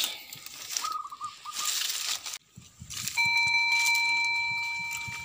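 Rustling and a short rapid high trill, then after a sudden break a sustained ringing chime tone that slowly fades, over a low rumble.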